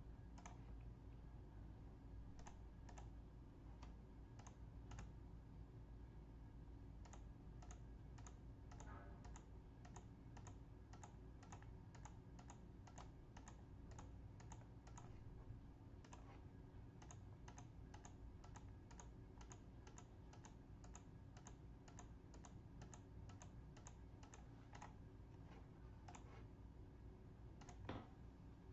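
Faint computer mouse clicks in quick runs, about two or three a second, with a short pause partway through, over a low room hum.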